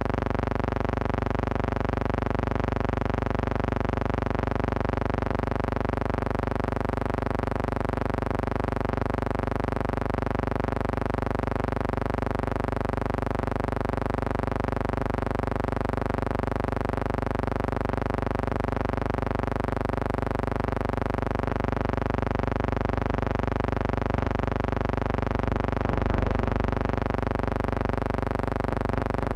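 A steady buzzing hum: one low pitch with many evenly spaced overtones, unchanging throughout.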